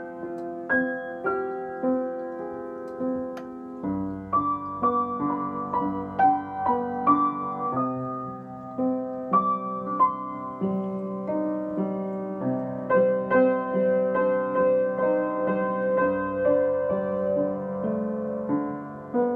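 Upright piano played solo, an improvisation of sustained chords with a melody over them. Deeper bass notes join about four seconds in.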